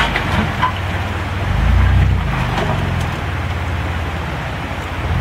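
Toyota 4Runner engine running at crawling speed under load on boulders, revving up about a second and a half in and again at the very end.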